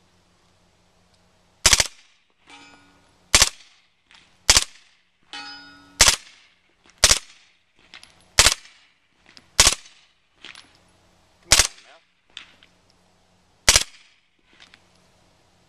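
Suppressed MP5 submachine gun firing single shots, nine in all, one to two seconds apart. Several shots are followed about a second later by a fainter ringing ping of the bullet striking a steel target downrange.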